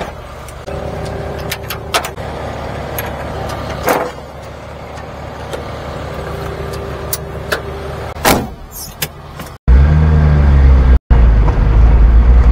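Japanese kei mini-truck's engine idling steadily, with a few sharp knocks and clanks as the emptied dump bed's side is handled. Near the end, after a brief dropout, the engine turns suddenly much louder and deeper, heard from inside the cab.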